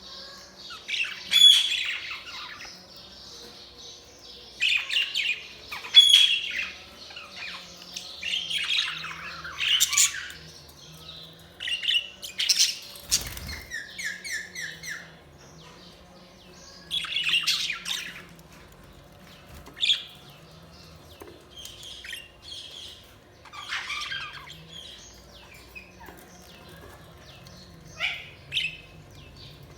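Budgerigars chirping and squawking in irregular bursts, with quieter gaps between them. There is a single sharp knock about 13 seconds in.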